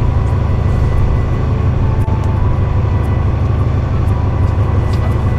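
Small fishing boat's engine running at idle: a steady low drone with no change in pitch.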